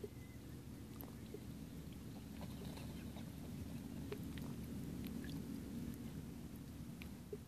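Faint small ripples of calm sea water lapping at a rocky shoreline: scattered little clicks and splashes over a steady low rumble.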